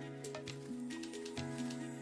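Background music: held melodic notes over a light ticking beat.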